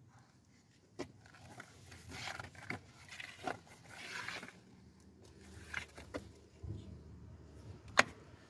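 Handling noise: scraping and rustling with several sharp clicks, the loudest click near the end.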